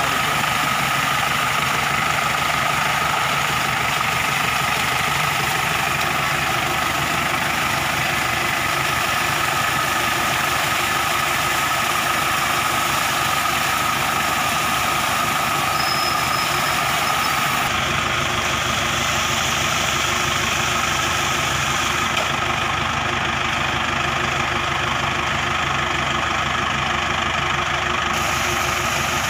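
A water jet from a wide pump hose gushes and splashes over a tractor and its rotavator, over the steady running of an idling engine. The sound changes abruptly about two-thirds of the way through.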